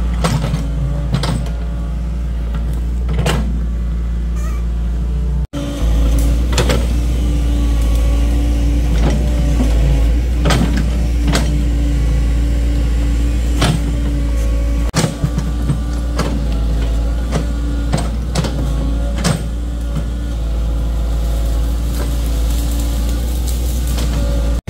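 Mini excavator's diesel engine running steadily under load, with repeated knocks and clanks as the bucket digs and scrapes soil.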